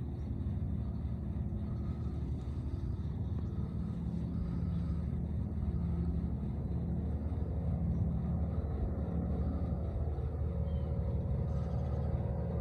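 Steady low rumble of a running vehicle, with a faint engine hum that stays even throughout.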